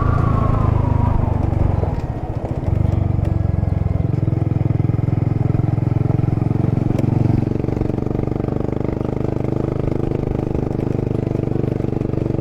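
Honda Monkey's single-cylinder four-stroke engine running at a steady cruise under the rider. Its note briefly drops away about two seconds in, then carries on, shifting its pitch a little about seven and a half seconds in.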